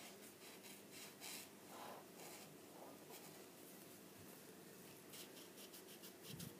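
Faint scratching of a paint marker's tip on paper in short strokes as letters are coloured in, with a soft low bump near the end.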